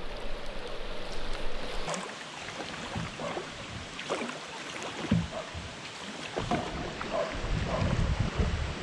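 A wooden canoe paddle working in the water: short splashes and drips from the blade over a steady wash of moving water. Wind buffets the microphone near the end.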